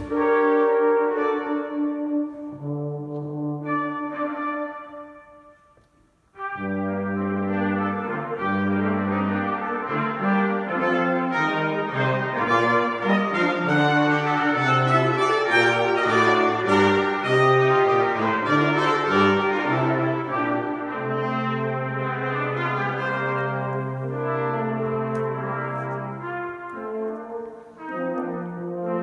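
Brass quartet with tuba playing a composed piece. The music fades away to a brief silence about six seconds in, then all four instruments come back in together, with the tuba's low notes under the upper parts.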